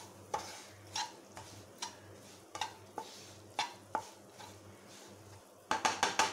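A wooden spatula stirring dry date powder roasting in ghee in a nonstick pan, scraping the pan in repeated strokes; near the end comes a quick run of sharper taps of the spatula on the pan.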